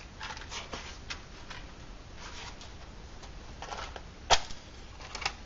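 Light rustling and small clicks from objects being handled, with one sharp click about four seconds in and a smaller one near the end.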